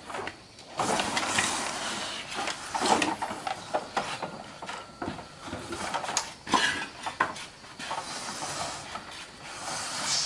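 Old motorcycles being pushed by hand over wet concrete: a hiss of tyres rolling, with the loose frames and bodywork rattling and scattered knocks.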